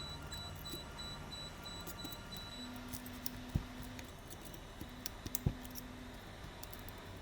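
Small clicks and taps of tools and parts being handled during a phone repair, with two louder knocks about three and a half and five and a half seconds in.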